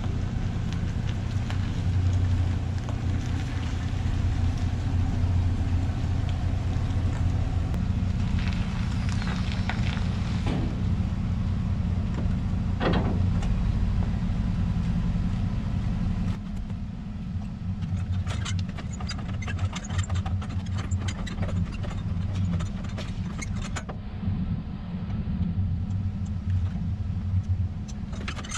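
Pickup truck engine running steadily as the truck backs up to an equipment trailer. Later come sharp metal clanks and rattles of the trailer coupler and safety chains being hooked to the hitch, over an idling engine.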